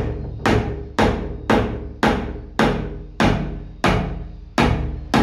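Hammer blows on a steel rod or chisel driven into the seam of an old piston water pump's metal housing to split it apart, about two sharp metallic knocks a second, each with a short ring, the blows slowing slightly.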